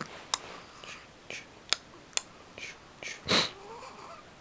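Scattered soft clicks and breathy, whispery sounds during a newborn's bottle-feed, followed about three seconds in by one short, loud squeak from the baby that rises in pitch.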